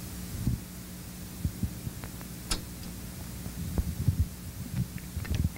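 Room tone: a steady low electrical hum with soft, irregular low thumps and a few small clicks, the sharpest about two and a half seconds in.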